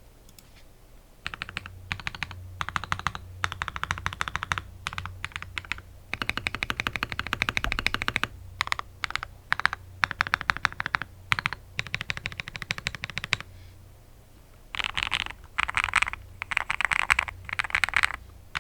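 Typing on a Gas67 mechanical keyboard with lubed KTT Kang White linear switches and PBT XDA keycaps, its case tape-modded and filled with polyfill. The keys are struck in quick bursts with short pauses between, starting about a second in, with a longer pause near two-thirds of the way through before a louder run of bursts.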